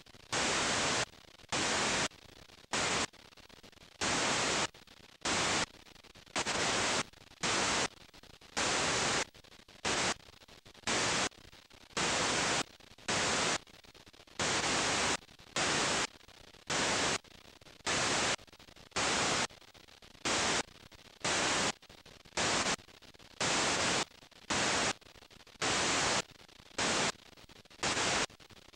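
Videotape playback static from a stretch of tape with no recorded signal: loud hiss in bursts about half a second long, roughly one a second, with fainter hiss between them.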